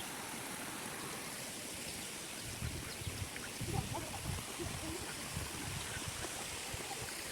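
Steady rush of flowing water from a stream at a waterfall, with a few faint low thumps about the middle.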